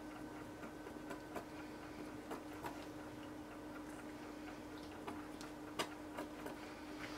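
A skewer clicking and tapping irregularly against a small cup and the soap mold as mica mixed in oil is dipped out and drawn over raw soap, over a steady low hum.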